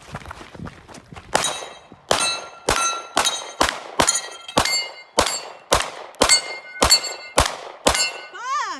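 A rapid string of about thirteen gunshots, roughly two a second, each with the clang of a bullet striking a steel target plate that rings on after the hit.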